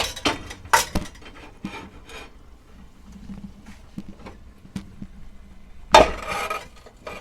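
A cooking pot and metal cookware clanking and knocking as the pot is handled on the stove and set over something placed beneath it, so the slow-cooking rice does not burn on the bottom. There are several sharp knocks at the start, light ticks after them, and a longer, louder clatter about six seconds in.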